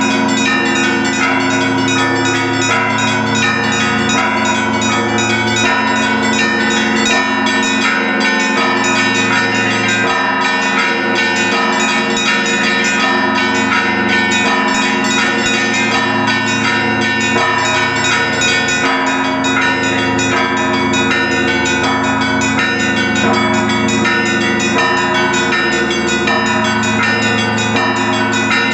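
Russian Orthodox church bells of the St. Sophia Cathedral bell tower ringing together in a continuous peal: low bells sounding steadily underneath rapid, unbroken strikes of the smaller bells.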